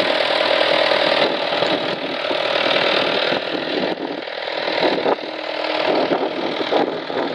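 A vintage tractor's engine running steadily, its level shifting a few times.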